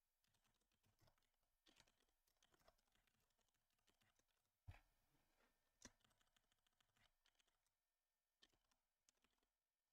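Faint computer keyboard typing: scattered keystrokes, with two sharper key clicks a little before five and six seconds in.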